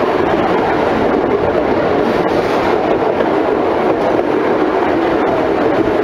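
A work train running slowly along freshly laid, not-yet-ballasted track: steady running noise from the train and its wheels on the rails, with a few faint clicks.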